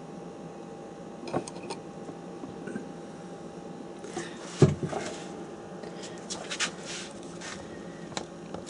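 Scattered light knocks and clicks of objects being handled on a work surface, with one louder knock about halfway through, over a steady low hum.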